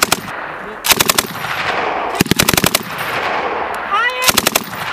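M240 7.62 mm belt-fed machine gun firing three short bursts of several rounds each, about a second and a half apart, with the report echoing in the gaps between bursts.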